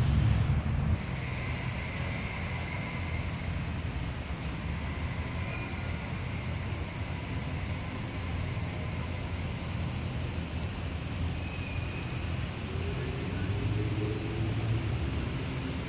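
Steady low rumble of city road traffic, louder for the first second, with faint distant voices and a few faint high chirps.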